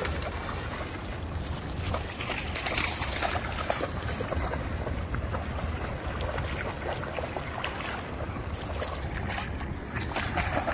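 Dogs running and splashing through shallow seawater, a steady mix of irregular splashes. A constant low rumble of wind on the microphone runs underneath.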